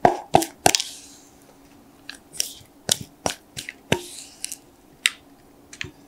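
Thick matcha batter pouring from a glass bowl into a paper-lined plastic container: an irregular string of wet plops and sharp little clicks, about fifteen in all and loudest in the first second.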